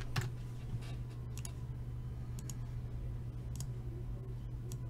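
Scattered clicks of a computer keyboard and mouse, about half a dozen spread out, over a steady low hum.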